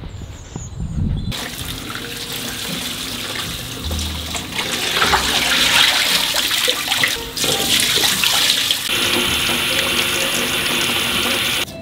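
Kitchen tap running into a plastic washing-up bowl of pak choi leaves, the water splashing and pouring over the bowl's rim into the sink. It comes in about a second in, grows louder midway, and cuts off suddenly near the end.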